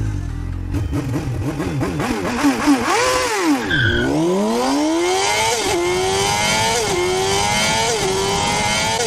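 Engine sound effect: revved in quick blips, then accelerating hard, its pitch climbing and dropping back at each gear change about once a second.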